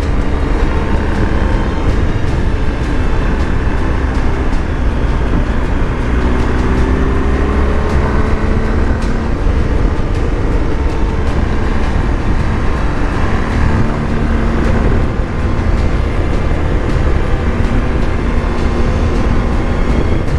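BMW R 1250 GS Adventure motorcycle riding at road speed, its boxer-twin engine running under a heavy low rumble. The engine's pitch climbs for a few seconds about six seconds in, then settles into a steady note.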